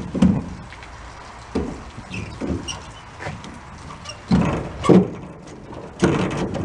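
Ratchet strap being worked loose: irregular clicks and clunks of the ratchet buckle, about one a second, louder near the end.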